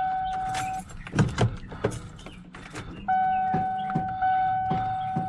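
A 1994 Ford F-150's in-cab warning tone sounding steadily. It breaks off about a second in for a few sharp clicks, then comes back about three seconds in. The engine does not crank: a no-start despite a new battery, which the owner suspects is the starter solenoid.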